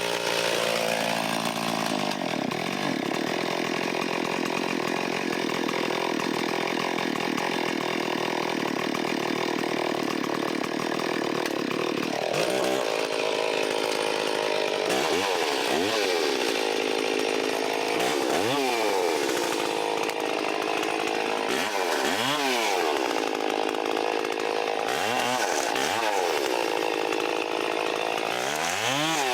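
Stihl 034 two-stroke chainsaw running. For the first twelve seconds or so it is held at high throttle, then it is revved up briefly and let back down about every three and a half seconds.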